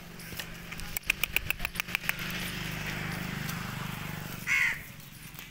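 A quick string of sharp clicks, then an engine running steadily for about two seconds. Near the end comes one short, loud call.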